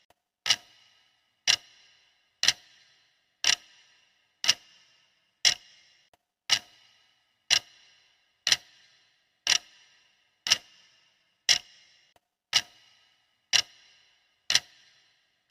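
Clock ticking steadily, one tick a second, each a sharp click with a short ring: a countdown timer's ticking sound.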